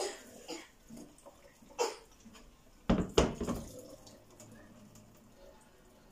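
Hot water from an electric kettle splashing onto a metal cooker-hood grease filter in a stainless steel sink. The pour stops just after the start, followed by knocks and clatter of metal on the steel sink and drainer, the loudest about three seconds in.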